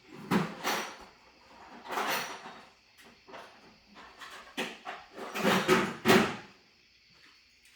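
Tool drawers sliding open and shut in a series of short scraping slides and knocks, loudest around five to six seconds in, as someone hunts for a pair of cutters.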